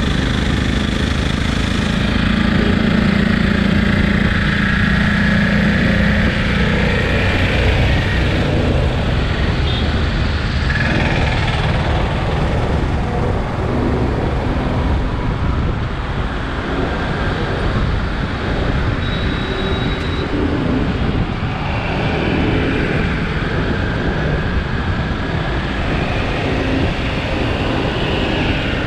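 Riding a two-wheeler through city traffic: the bike's engine runs under a continuous rush of wind and road noise, mixed with the engines of the surrounding motorcycles, scooters and rickshaws.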